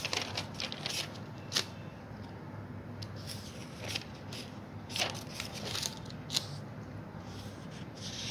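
Dry-erase marker writing on a whiteboard: a string of short scratchy strokes and taps at irregular intervals, over a steady low hum.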